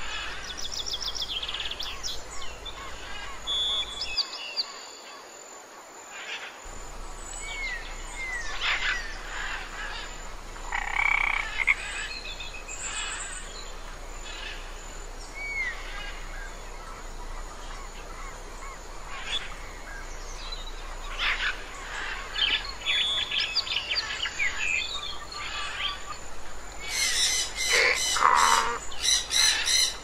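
Forest ambience of many bird chirps and short whistled calls, mixed with frog-like croaks, over a steady background hiss. A denser run of sharp calls comes near the end.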